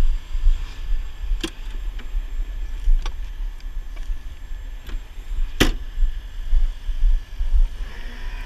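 A steady low rumble with four sharp knocks, about a second and a half, three, five and five and a half seconds in, the last the loudest: handling noise as the camera is moved and bumped against the wrecker's body.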